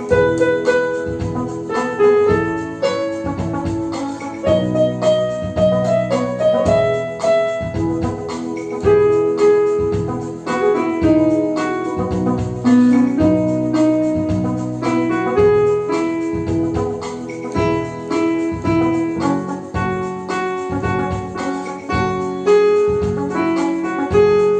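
Electronic keyboard playing the song's melody over held chords, with a steady programmed drum rhythm.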